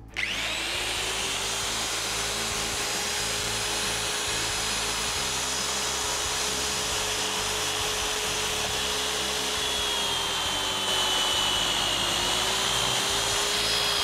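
Magnetic drill boring through a steel post with a 23 mm annular cutter run dry, without cutting fluid: a steady motor drone with a high metallic whine over the grinding of the cut. Both tones sag slightly in pitch in the last few seconds.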